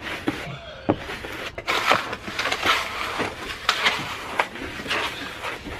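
A 3/32-inch notched trowel spreading pressure-sensitive flooring adhesive over a plywood van floor, in a series of repeated scraping strokes.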